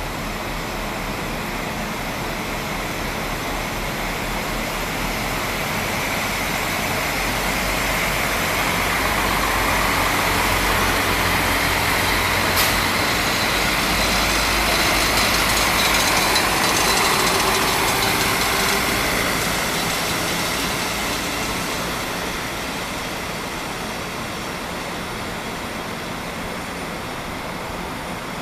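SA132 diesel railcar pulling out and passing close by. Its engine hum and wheel-on-rail noise swell to a peak about halfway through, with one sharp click as it goes by, then fade as it draws away.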